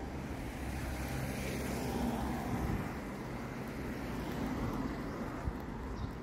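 Street traffic: cars driving slowly past with a low engine and tyre rumble that swells twice.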